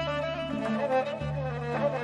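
Persian classical instrumental music: a kamancheh (bowed spike fiddle) plays a melody over low sustained bass notes that change about every second and a half.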